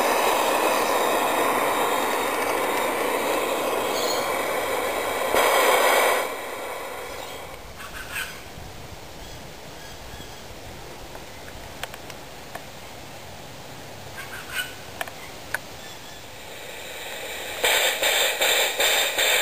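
Garden-scale model train coaches rolling past close by on their track, a steady rushing rumble that drops away about six seconds in. A few faint clicks follow, and near the end a loud rhythmic pulsing sound starts.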